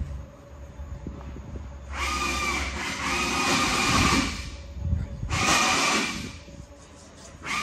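A power tool whining in two bursts, the first about two and a half seconds long and the second about a second, each a steady whine over a hiss.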